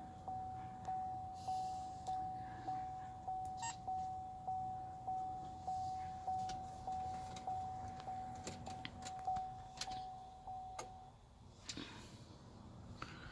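A car's interior warning chime dings over and over, one pitch about every 0.6 s, and stops about eleven seconds in. A few sharp clicks sound in the second half.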